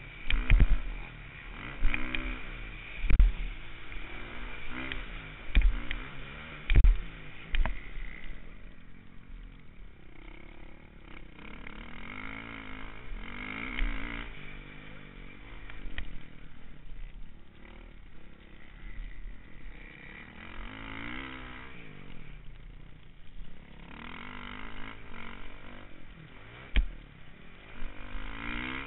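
Onboard recording of an off-road engine on a motocross ride, revving up and down as it accelerates and backs off through the track, heard close to the vehicle. Heavy thumps hit the microphone several times in the first eight seconds and once more near the end.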